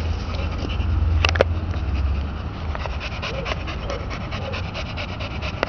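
A young American Staffordshire Terrier panting quickly, in a run of short, even breaths, over a low rumble. There are two sharp clicks a little over a second in.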